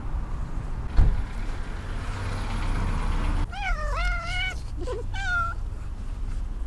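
Stray cats squabbling at a shared food bowl: a cat gives a drawn-out, wavering meow, then a second shorter one. There is a knock about a second in and a spell of hissing noise just before the first meow.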